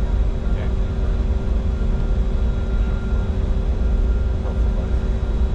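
Steady cockpit noise of a Bombardier Challenger 605 business jet on approach: a constant low rumble of airflow and engines, with a few faint steady hums.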